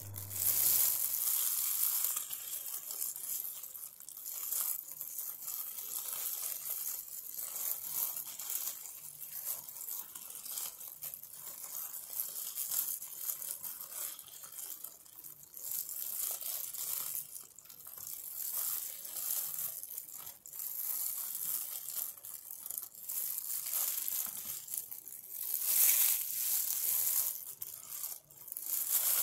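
Pandan leaves rustling and crinkling as plastic-gloved hands handle and shift them on a plastic cutting board: an uneven run of soft, crisp rustles and scrapes, louder near the start and again near the end.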